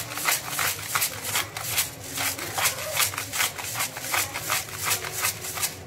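Wooden spatula stirring thick chicken rice porridge in a pot, a rhythmic scraping and slopping at about three strokes a second that stops near the end.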